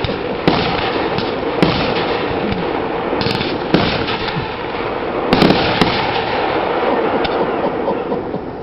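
Fireworks going off: a steady crackling rush broken by sharp bangs, several close together about five and a half seconds in, fading near the end.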